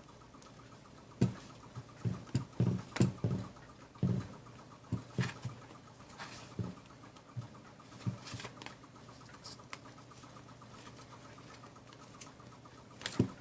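Book rings being worked through punched paper index cards: a run of small clicks, taps and paper rustles, busiest in the first half, with a couple more sharp clicks near the end.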